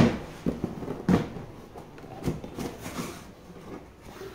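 Packed goods being handled: short knocks and scuffs of cardboard boxes and a hard plastic carrying case being shifted. The loudest knock comes right at the start, another about a second in, and smaller ones follow.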